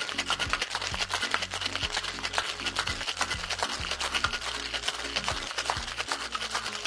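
Ice rattling rapidly inside a metal cocktail shaker being shaken hard, with background music and its bass beat underneath.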